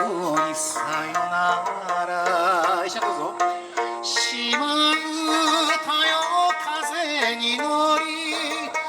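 Background music: an Okinawan-style folk-pop song with plucked strings and a wavering melody line.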